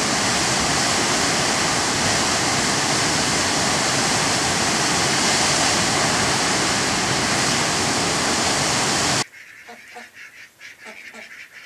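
High Force waterfall on the River Tees, the heavy flow of falling water giving a loud, steady rush. It cuts off abruptly about nine seconds in, and ducks are then heard quacking in short, repeated calls.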